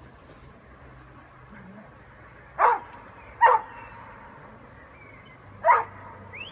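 A Doberman barking in play: three short barks, two about a second apart and a third a couple of seconds later.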